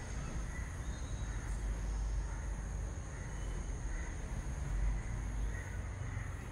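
Low, steady background rumble with a faint high-pitched whine and no distinct event.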